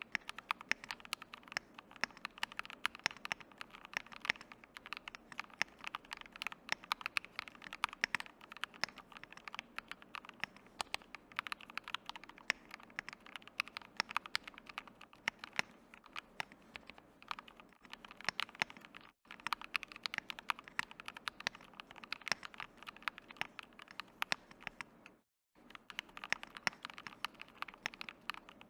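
Continuous fast typing on a Tofu65 keyboard with a brass plate and stock Akko CS Wine Red linear switches under Hippo PBT keycaps: a dense run of sharp keystroke clacks, broken twice by a very short gap.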